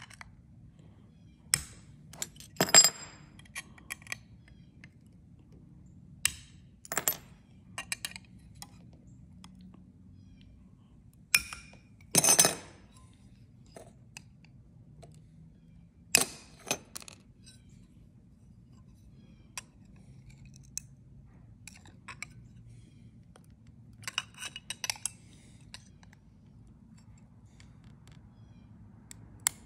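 Blue stained glass being broken and grozed away along a scored curve with grozier/breaker pliers: irregular sharp snaps and clinks as bits of glass crack off, the loudest about three and twelve seconds in and a quick cluster near the end.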